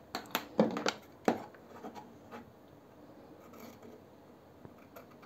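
Fabric scissors picked up off a cutting mat and cutting along the edge of jacket lining: a cluster of sharp clicks and snips in the first second and a half, then fainter snipping and rustling of the fabric.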